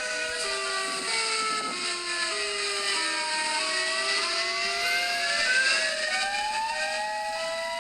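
Emergency alert system (EAS) alarm tone: several overlapping tones that step and slide up and down in pitch, over a steady hiss.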